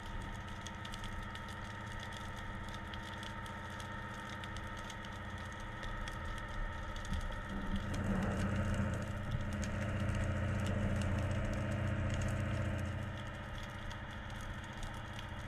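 Underwater ambience: a steady mechanical hum under constant fine crackling and ticking, with a louder low rumble swelling from about eight seconds in and fading near thirteen.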